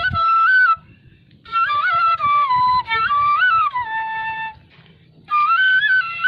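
A flute (Vietnamese sáo) playing a slow, wavering melody in three phrases, with brief pauses for breath about a second in and again near the end.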